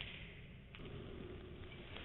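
Faint room noise with one light click a little under a second in.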